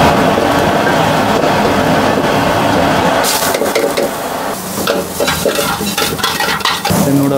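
A high-flame gas wok burner runs with a steady rushing noise under a heating wok. About three seconds in, sliced onion, capsicum and carrot go into the hot oil and sizzle loudly, while a metal ladle scrapes and clanks against the wok as the vegetables are stir-fried and tossed.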